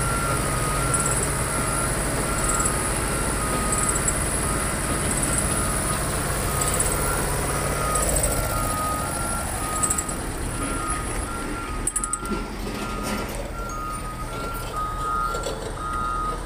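A vehicle's two-tone reversing alarm beeps steadily, alternating between two pitches, over a heavy diesel truck engine idling. The engine rumble fades about eight seconds in, and a few metallic clinks follow partway through.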